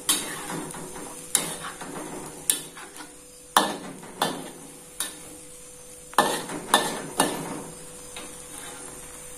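Ground spice paste frying in oil in a pan, sizzling lightly, while a cooking utensil stirs it and knocks against the pan about once a second, with a faint steady hum underneath.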